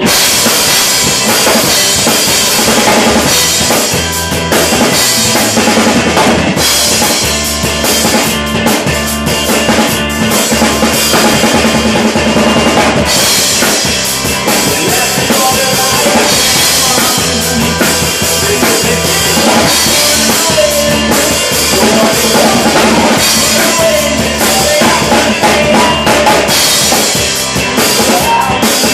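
Acoustic rock drum kit played hard, with snare, bass drum and crash cymbals, over a recorded rock band track; the full band and drums come in suddenly at the start.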